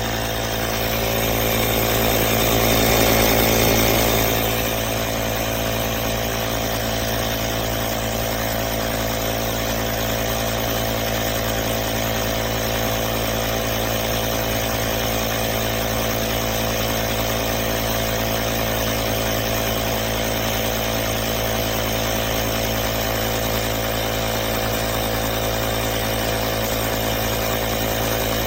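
Small battery-powered compressor of a DIYtoolifz 160 PSI cordless tire inflator running steadily, with a brief swell in loudness about three seconds in.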